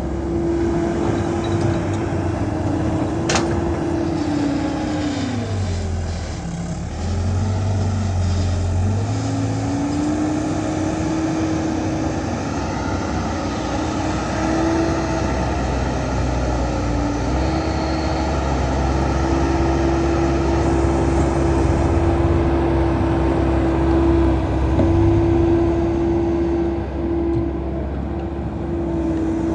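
Kubota DC70 rice combine harvester running steadily with its diesel engine and machinery going. The engine note sags from about five to seven seconds in, then recovers and holds steady.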